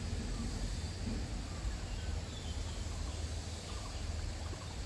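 Steady outdoor noise beside a river pool, with a low, uneven rumble of wind on the microphone and a few faint, short distant calls.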